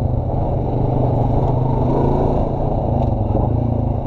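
Honda Rancher 420 ATV's single-cylinder four-stroke engine running steadily under way, heard close up from the rider's seat.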